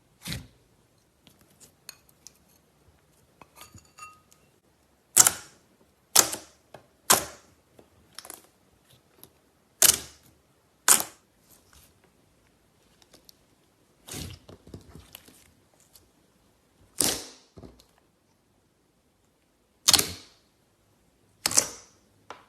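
Crunchy slime being crushed and pressed by hand: about ten sharp, crackling crunches at irregular intervals, with fainter crackles and ticks between them.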